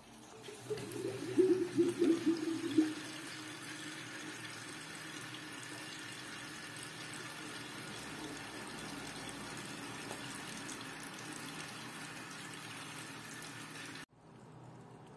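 Coolant in a custom PC water-cooling loop gurgling loudly for the first few seconds as the pump pushes it and trapped air through the reservoir. It then settles into a steady rush of circulating water, which cuts off near the end.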